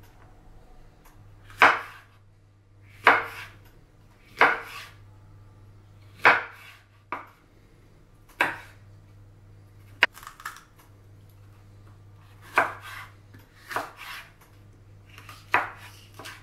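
Chef's knife slicing bell peppers on a wooden cutting board: about a dozen separate sharp knocks of the blade striking the board, unevenly spaced, roughly one every second or so. A faint steady low hum runs underneath.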